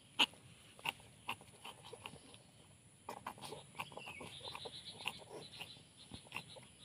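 Kitten hiccuping: short, faint, irregular hiccup clicks several times a second, the sharpest about a quarter of a second in. The spasms are likened by the owner to a seizure or poisoning, and he wonders whether the kitten is choking on something it ate.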